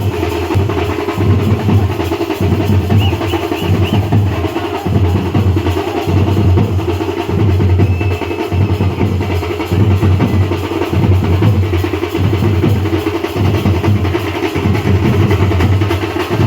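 Loud drum-heavy music with a steady beat and a strong bass.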